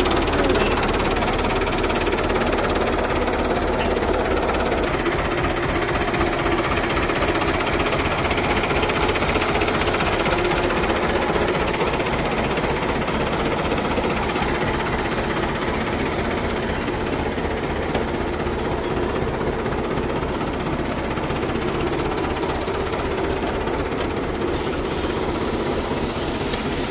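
Fiat 640 tractor's diesel engine idling steadily.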